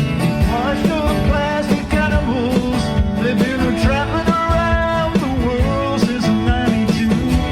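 Live band music: strummed guitar and drums under a lead melody line that bends in pitch.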